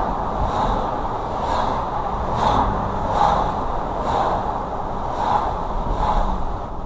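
Car road noise inside the cabin while driving, with a soft swish repeating a little more than once a second.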